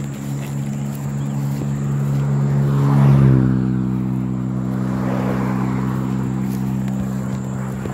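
A passing engine: a steady hum that grows louder to a peak about three seconds in, then drops slightly in pitch as it goes by and carries on more softly.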